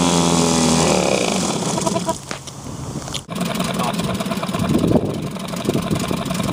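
1972 Evinrude 4 hp Lightwin two-stroke twin-cylinder outboard running, steady at first, then slowing and falling quieter about two seconds in. After a sudden break it runs at idle with a fast, even firing beat.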